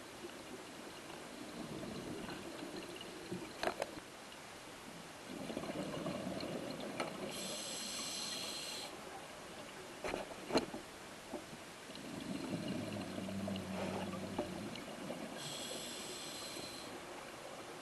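Scuba diver's breathing through a regulator underwater: twice, a burbling rush of exhaled bubbles and then a hissing inhale, about eight seconds apart. A few sharp clicks fall in between.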